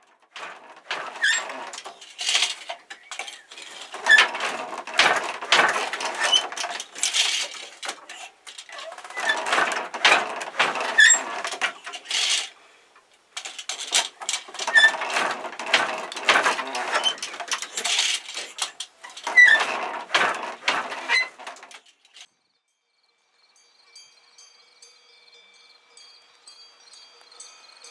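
Handloom in use for weaving, its working parts clattering and knocking in dense runs with two short pauses, stopping about three-quarters of the way through.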